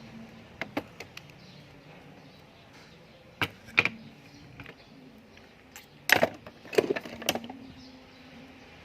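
Sharp clicks and knocks of fishing reel parts and tools being handled during a hand repair, irregular and spaced out. A few light clicks come first, two louder ones follow about three and a half seconds in, and a tight cluster of the loudest knocks comes around six to seven seconds.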